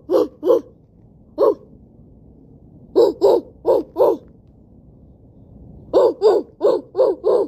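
A person imitating a dog's bark with their voice: short barks in quick runs. There are two at the start, a single one, then four about three seconds in and five more about six seconds in.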